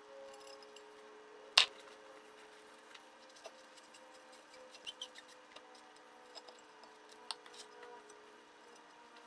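Light metallic clicks from hands working a crankshaft in a two-stroke engine's bottom crankcase half: one sharp click about a second and a half in, then a few scattered faint ticks.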